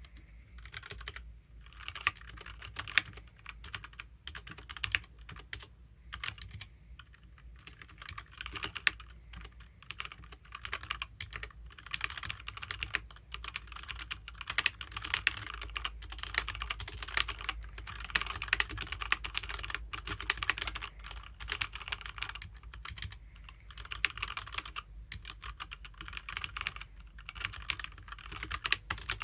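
HyperX Alloy Origins mechanical keyboard with HyperX Red linear switches being typed on steadily: a rapid run of keystroke clicks with a few short pauses.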